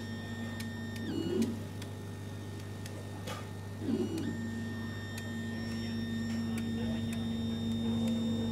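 CO2 laser cutter running while cutting: a steady hum from the machine with thin high whines from its stepper motors that jump in pitch as the head changes moves. There are brief rougher bursts about a second in and again near four seconds.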